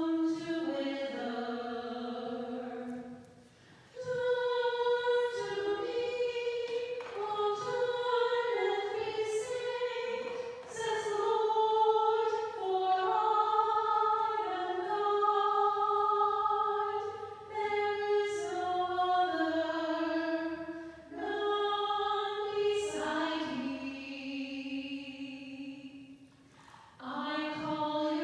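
Unaccompanied singing of a slow offertory hymn: one melody line in long phrases, with short breaks between them.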